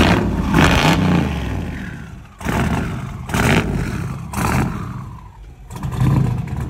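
Box Chevy Caprice's engine revved in short blips about five times over a steady low idle, the pitch rising and falling with each blip.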